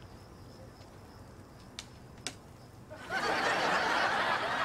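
Studio audience laughter that breaks out about three seconds in and carries on, after a quiet stretch broken only by two faint clicks.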